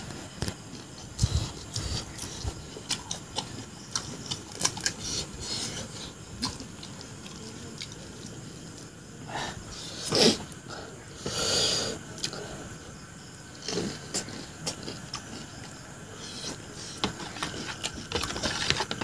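Close-miked eating of pani puri: chewing and crunching of the crisp hollow puri shells, with many short sharp clicks and a few longer noisy mouth sounds near the middle.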